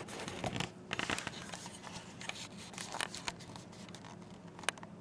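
Irregular rustling and scratching, like fabric or a held phone being shifted, with scattered small clicks and one sharp click near the end.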